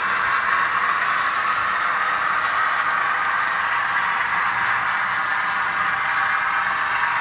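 TCS WOW DCC sound decoder playing an ALCO 244 turbocharged diesel prime mover with the throttle open, running steadily through the model locomotive's small speaker.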